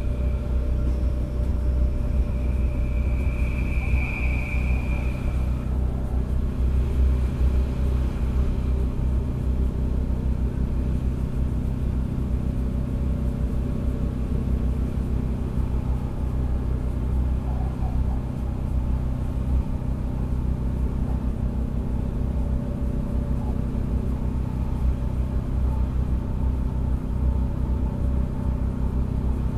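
DB Class 642 Desiro diesel railcar at speed, heard from inside the passenger compartment: a steady low drone and rumble from the engine and the running gear. A brief high-pitched whine rises over it a few seconds in.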